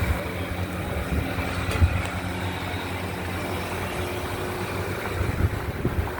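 Steady low mechanical hum, with a few short knocks about two seconds in and again near the end.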